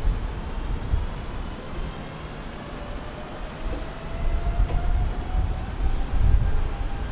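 Hanshin electric train running at the station: a low rumble, with a faint motor whine that rises slowly in pitch from about two seconds in.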